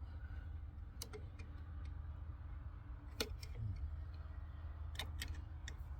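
A few sharp metallic clicks and ticks of hand tools working at small retaining clips (keepers) on a large circuit breaker, the loudest about three seconds in and a quick pair near the end, over a steady low hum.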